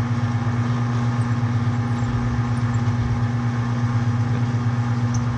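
Metal lathe running under power, its motor giving a steady, even hum while a cut is underway.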